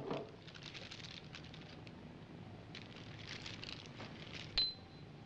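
A glass ketchup bottle is set down on a table with a thump. Then the burger's paper wrapper crackles and rustles as the hamburger is handled, and about four and a half seconds in there is a sharp click with a short high ring.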